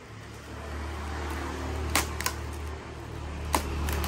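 A cardboard box being opened by hand: packing tape pulled and flaps rustling, with a few sharp snaps, over a steady low rumble.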